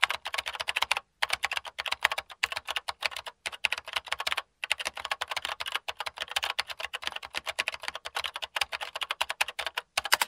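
Rapid, uneven clicking like fast typing on a keyboard, many clicks a second, pausing briefly about a second in and again about four and a half seconds in.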